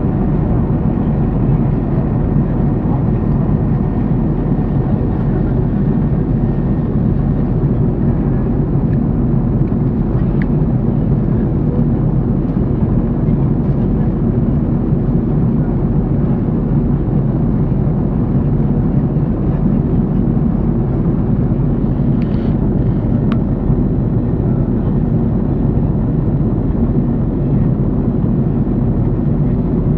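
Airliner cabin noise in flight: the engines and rushing air make a steady, even rumble, heaviest in the low range.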